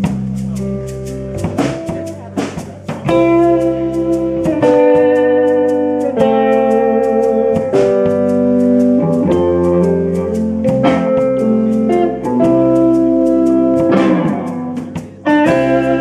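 Live rock band playing: electric guitars and bass holding chords that change about every second and a half over a drum kit. The band comes in louder about three seconds in, and drops out briefly near the end before coming back in.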